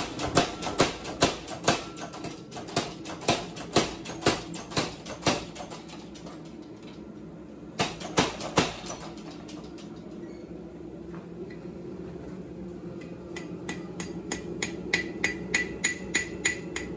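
Blacksmith's hand hammer striking a red-hot railway spike on an anvil, about two blows a second for the first five seconds and three more about eight seconds in. From about thirteen seconds a quicker run of lighter blows rings out from the anvil. A steady hum runs underneath.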